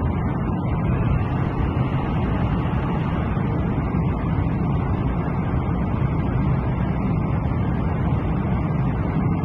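Airliner cabin noise in flight: the steady, deep rumble of jet engines and rushing air.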